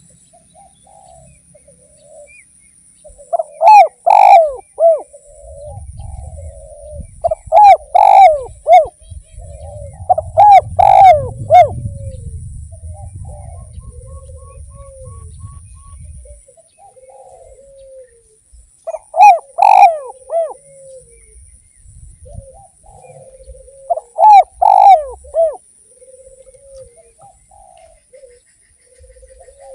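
Spotted doves (derkuku) cooing: five loud phrased coo calls, with a long pause in the middle, and fainter cooing from other doves between them.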